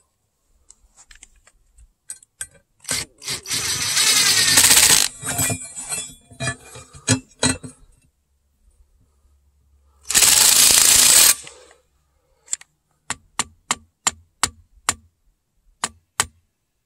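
Cordless drill driving screws through a steel jig plate into the end grain of a cedar log: the motor runs under load for about two seconds starting three seconds in, and again briefly around ten seconds. Near the end come a series of sharp clicks, about two a second.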